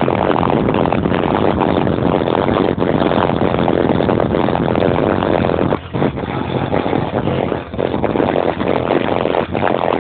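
Bass-heavy music played loud through a car's 15-inch Kicker L7 subwoofer, powered by a Quantum 1500D amplifier, heard as a dense, continuous rumble with brief dips about six and eight seconds in.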